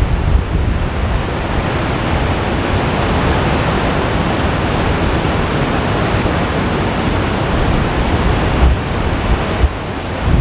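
Steady rushing noise of the Ermenek Dam spillway's two high-pressure water jets discharging and colliding in the narrow valley, with wind buffeting the microphone. The level dips briefly near the end.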